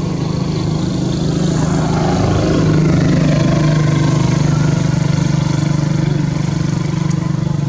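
A motor engine running with a steady low drone, growing louder to a peak about three seconds in and then slowly easing off, like a passing motorbike.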